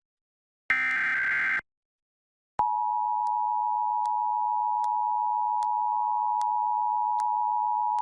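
Emergency Alert System broadcast: about a second of SAME header data, a rapid warble between two high pitches, then silence, then about two and a half seconds in the two-tone EAS attention signal (853 and 960 Hz together) starts abruptly and holds steady. It is the header and attention tone that open a required monthly test of the alert system.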